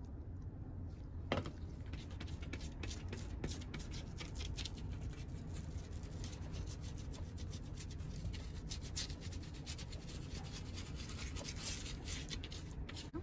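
A brush scrubbing ink onto a textured collagraph plate in quick, scratchy strokes, with a single knock about a second in.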